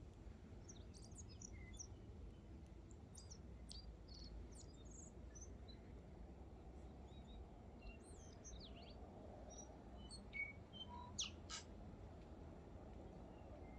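Wild birds chirping and twittering faintly, several short high calls scattered throughout, with two louder sharp calls about eleven seconds in.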